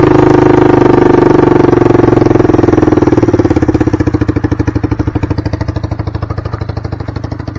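Small motorcycle-type engine on a homemade go-kart running with the throttle worked at the carburettor: steady at first, then from about three seconds in it slows and quietens, each firing pulse heard separately as it drops toward idle.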